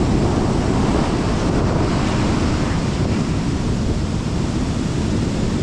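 Surf breaking and washing up the beach, with wind buffeting the microphone: a steady, loud rush of noise.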